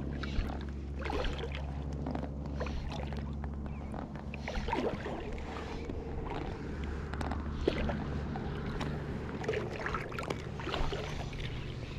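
Water lapping and small splashes against an inflatable float tube, with soft handling noise as fly line is stripped in and then cast. A steady low hum runs underneath.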